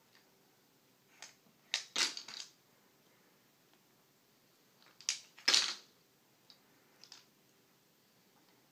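Wooden ring-stacking toy clacking and knocking as a baby handles it: a few sharp clicks and knocks, the loudest about two seconds in and again about five and a half seconds in.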